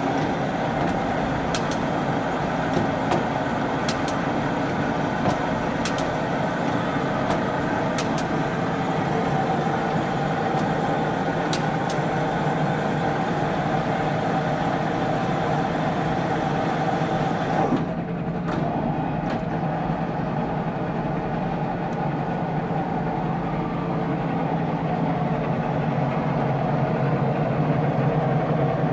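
Ward 2DB turret lathe running, with a steady machine hum. A few sharp clicks come in the first half. About two-thirds of the way through, the hiss above the hum suddenly drops away.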